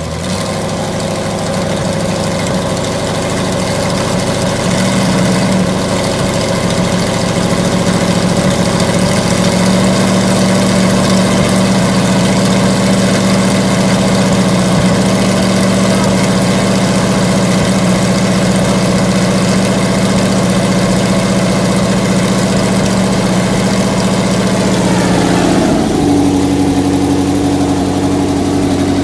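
Rebuilt Chevrolet 454 big-block V8 idling steadily just after starting, with its idle speed dropping a notch and settling lower near the end.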